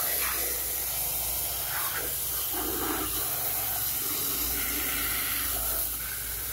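Steady hiss of water jetting from a garden-hose spray nozzle and spattering on plastic toy trucks.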